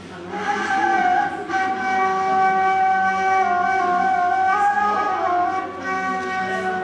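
Wooden flute playing a slow phrase: a long held note that comes in about half a second in, wavering and dipping slightly in pitch a few times.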